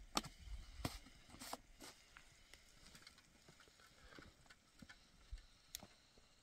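Faint, scattered light knocks and clicks of plastic containers and dishes being handled: about four in the first two seconds and one more near the end.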